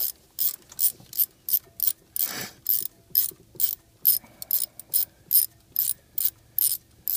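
Hand ratchet wrench clicking in a steady rhythm, about three clicks a second, as it backs out the ignition coil retaining screw, with one longer scraping stroke a little over two seconds in.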